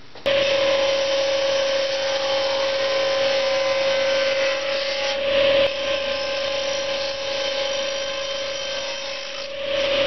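Table saw running steadily at speed while its blade crosscuts an untreated wooden fence board.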